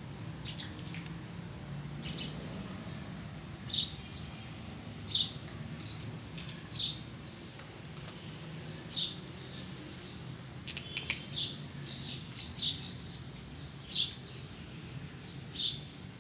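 A small bird chirping repeatedly: short, sharp, high-pitched notes at irregular intervals, roughly one a second, over a faint steady low hum.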